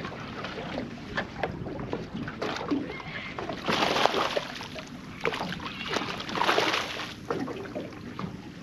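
Water splashing twice at a small boat's side, each time for about a second, with scattered knocks and wind noise in between, as a hooked flathead is brought in to the landing net.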